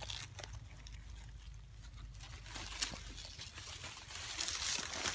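Dry leaf litter rustling and crunching as a deer carcass is pulled over on the ground, with scattered small clicks and bumps of a hand-held phone; the rustling grows louder near the end.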